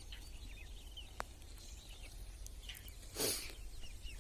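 Small birds chirping in the background, over a steady low rumble. There is a single click about a second in, and a short burst of rushing noise just after three seconds is the loudest sound.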